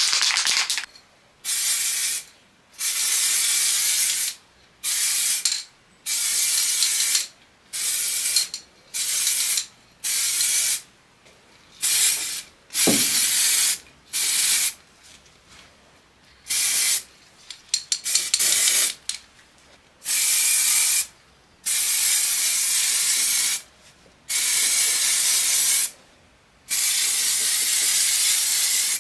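Aerosol spray paint can hissing in many short bursts, each half a second to two seconds long, with brief pauses between, as a metal part is coated.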